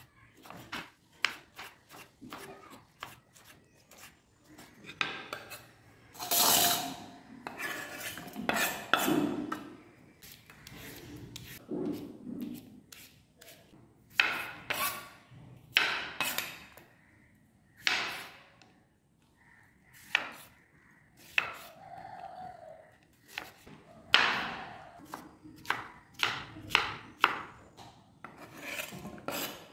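Knife cutting tomato and cucumber on a wooden cutting board: irregular sharp knocks of the blade striking the wood, mixed with longer scraping and slicing noises. Near the end, the chopped vegetables are scraped off the board into a steel bowl.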